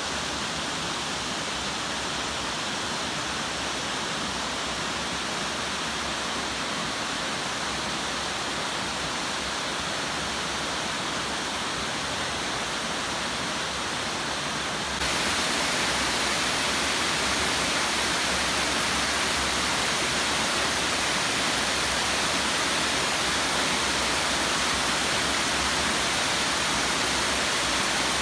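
Waterfall: a steady rush of falling water cascading over rock. It becomes louder from about halfway through and then holds steady.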